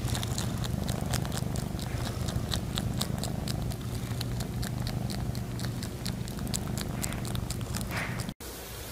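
Tortoiseshell-tabby cat purring steadily, with many quick wet clicks of its tongue as it licks. It cuts off suddenly near the end.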